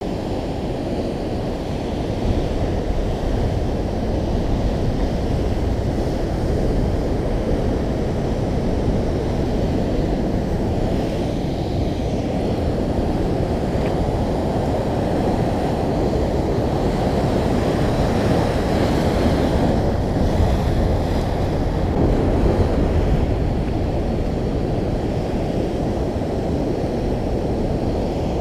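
Ocean surf breaking and washing against a rocky shore, a steady heavy rushing noise, with wind buffeting the microphone.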